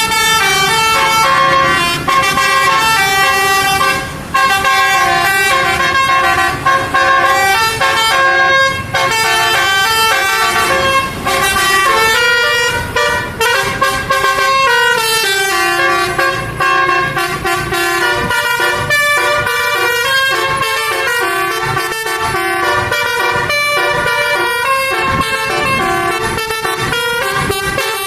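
Roof-mounted multi-trumpet telolet (basuri) bus horn playing a tune: several horn notes sound together and step from pitch to pitch, with a falling glide partway through.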